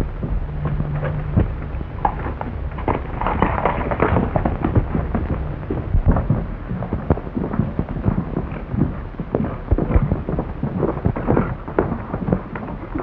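Dense, irregular crackling and popping over a low rumble: the surface noise of a worn early-1930s optical film soundtrack, with a brief steady low hum near the start.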